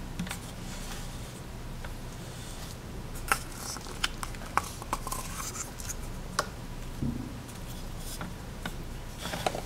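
Scattered light clicks, taps and scratches from hands handling plastic Play-Doh toys: the Hulk can-head figure and an opened Play-Doh tub, with the dough pulled out of it.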